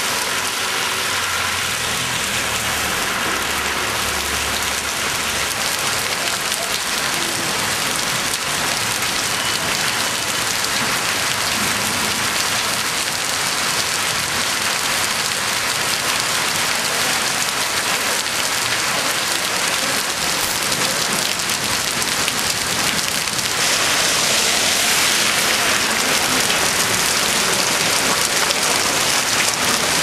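Heavy rain pouring onto a wet paved street, a steady hiss that grows louder about three quarters of the way through. A vehicle's low engine rumble sounds under it in the first few seconds.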